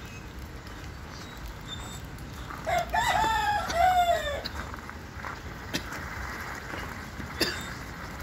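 A rooster crows once, about three seconds in: a single call of about a second and a half that rises and then falls away. Two faint clicks follow later.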